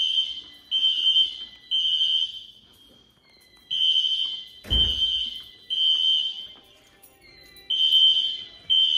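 Fire alarm horns being tested, sounding the temporal-three evacuation pattern. Each group is three high pulses about a second apart, then a pause of about a second before the next three. There is a heavy thump about five seconds in.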